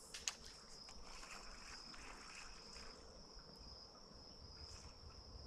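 Insects trilling: a faint, steady high-pitched drone, with a single sharp click about a third of a second in.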